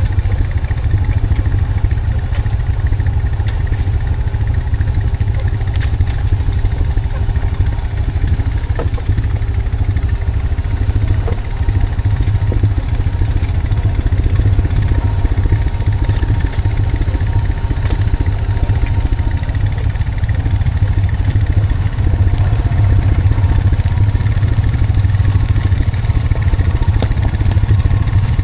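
Honda Foreman 520 ATV's single-cylinder four-stroke engine running steadily while pulling a log on a skidding arch, with a few light clicks and clatter.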